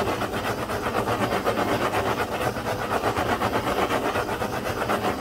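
Motorised tumbler cup turner running, its spinning shafts and bearings making a steady, fast, even rattle over a low hum, with the hiss of a handheld torch's flame.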